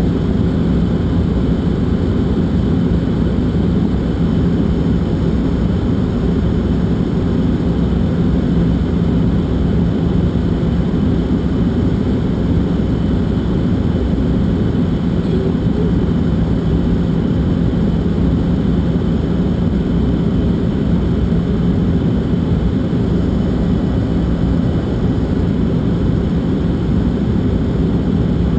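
Steady cabin noise inside a jet airliner on final approach: a constant engine and airflow roar with a steady low hum running under it.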